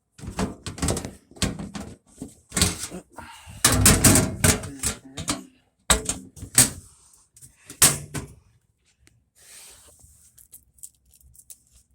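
A rapid run of knocks, bangs and clatter of hard objects being handled, which stops about eight and a half seconds in and leaves only faint scattered ticks.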